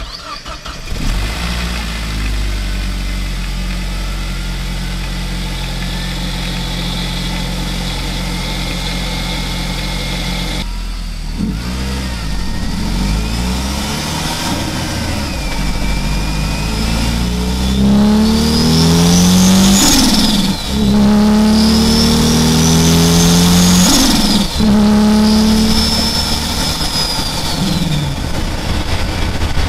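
Turbocharged Saab B205 four-cylinder engine, heard from inside the engine bay. It idles steadily for about ten seconds, then pulls under boost. The engine note climbs together with a rising high turbo whistle, then drops sharply at gear changes about two-thirds of the way in, again a few seconds later, and once more near the end.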